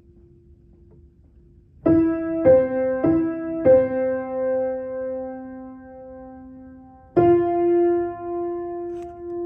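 Piano playing the alto part of a choral song as a slow single-note melody. A faint held note dies away, then just under two seconds in a string of single notes begins, the last two held for a few seconds each.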